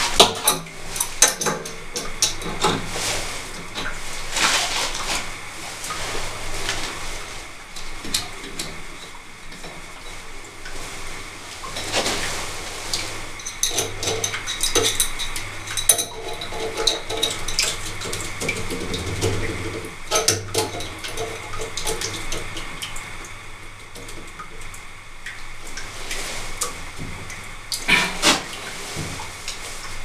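Adjustable wrench clicking and clanking against the metal pipe fittings of a well pressure tank while working a pressure switch loose from its pipe, in irregular knocks and scrapes.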